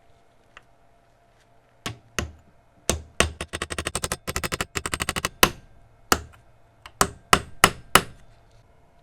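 Hammer strikes on metal. A few single blows come first, then a fast run of light taps for about two seconds, then a string of separate, harder strikes.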